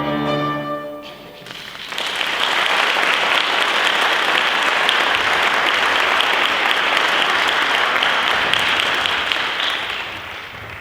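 A held final chord of the music stops about a second in, then an audience applauds, the applause fading out near the end.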